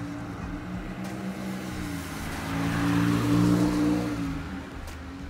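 A motor vehicle's engine running steadily, growing louder to a peak about three and a half seconds in and then fading, as of a vehicle going past.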